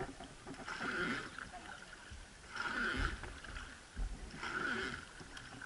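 River sightseeing boat being rowed by its boatmen, an oar stroke sweeping through the water about every two seconds.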